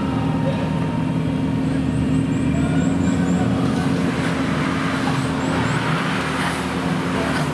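Suzuki Jimny's engine running at a steady speed, with a rush of hissing noise building in the second half.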